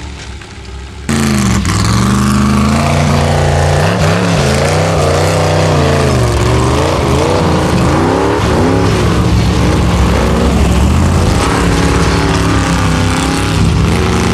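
Formula offroad buggy's engine revving hard on a steep gravel hill climb, its pitch rising and falling over and over as the driver works the throttle. It cuts in suddenly and loud about a second in.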